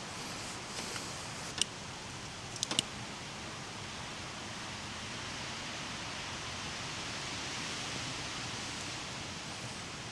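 Steady hiss with a few sharp clicks: one about one and a half seconds in, then three in quick succession near three seconds.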